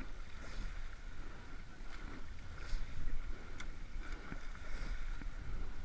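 Rowing shell underway: wind on the microphone over water rushing past the hull, with the oars' swish and clunk swelling in a rhythm about every two seconds, once per stroke.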